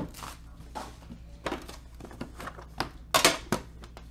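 A trading-card box being handled on a padded mat: a sharp knock at the start, scattered taps and scrapes, then a louder cluster of rustling knocks a little after three seconds in.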